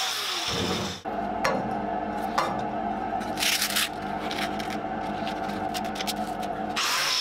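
Angle grinder with a flap disc on a steel helmet: its grinding noise drops away with a falling whine in the first second. A steady motor hum follows, with two sharp clicks and a brief scraping rasp in the middle. Loud grinding starts again near the end.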